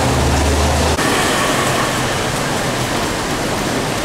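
Steady rain falling on a wet city street, an even hiss throughout. A low hum underneath stops abruptly about a second in.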